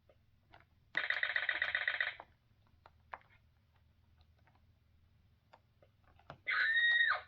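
Fisher-Price Great Adventures Magic Castle playset playing electronic sound effects through its small speaker. About a second in comes a rapid rattling burst of about a second, a bone-rattle effect. Near the end comes a short pitched tone that holds, then drops.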